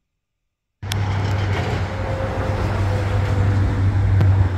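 Steady low rumble of a car engine running, starting abruptly a little under a second in.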